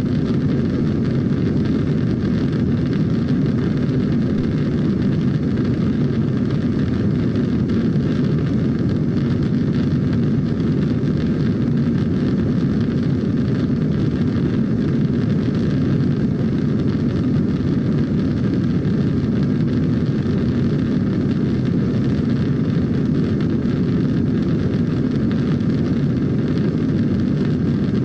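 Heavy rocket engine sound effect: a steady, deep rumbling noise that holds the same level and pitch throughout.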